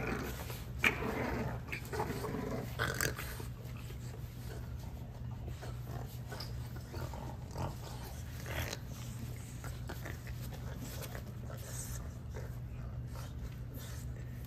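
French bulldog puppies play-fighting, with short growls and vocal noises in the first three seconds, then scuffling and scratching of paws on the pads as they keep wrestling. A steady low hum runs underneath.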